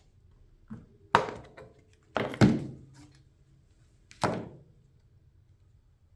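A few hard thunks and knocks, each fading out briefly: a loud one about a second in, two close together a little after two seconds, and a last one past four seconds.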